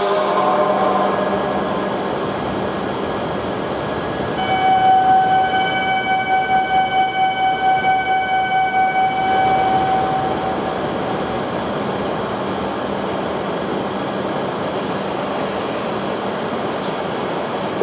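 Shinkansen train moving along the platform tracks with a steady rushing noise. From about four to ten seconds in, a high whine of several steady tones rises over it and wavers in loudness.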